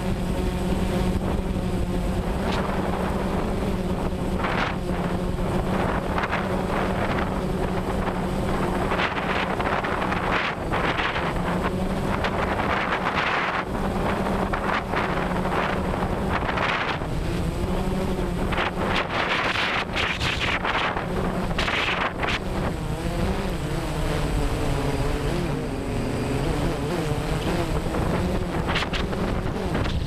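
Camera drone's motors and propellers running, heard from the onboard camera: a steady hum whose pitch wavers up and down as the drone flies. Wind rushes over the microphone in gusts through the middle.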